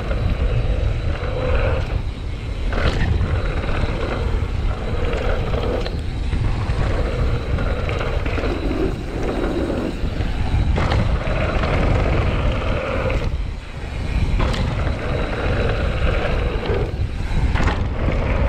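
Mountain bike running fast downhill on a dirt trail: wind rumbling over the handlebar camera's microphone and tyres rolling on dirt, with several sharp knocks as the bike hits bumps.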